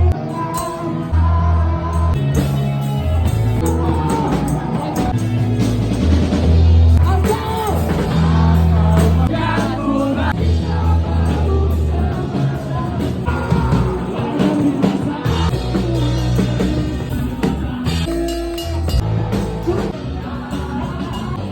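Rock music with singing: a vocal line over bass notes and drums.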